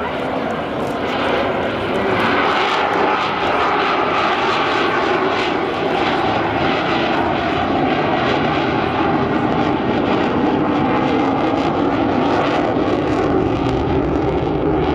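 Twin-engine F/A-18 Hornet fighter jet roaring past on a slow, gear-down pass. The jet noise builds over the first two seconds and then holds loud and steady.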